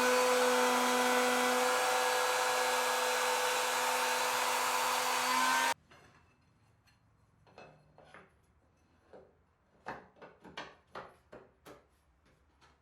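An electric power tool's motor running at a steady speed, cut off abruptly a little under halfway through. Then a run of light knocks and clicks, most of them near the end, from wood and tools being handled.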